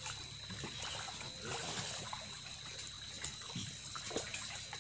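Small splashes and trickling water as a hooked tilapia thrashes at the surface of the lake.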